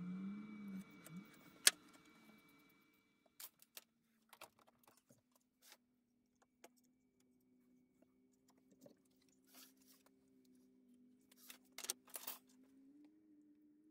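Scattered light clicks and knocks of metal tools being picked up and set down on a wooden workbench while a plunge router and bar clamps are positioned on a neck blank, with one sharp click about a second and a half in, over a faint steady hum.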